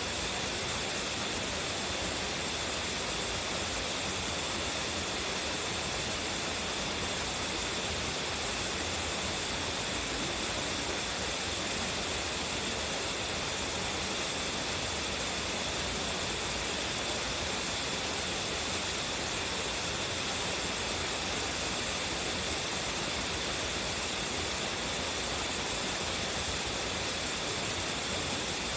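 A strong-flowing waterfall rushing steadily: a dense, unbroken hiss of falling water, bright rather than deep.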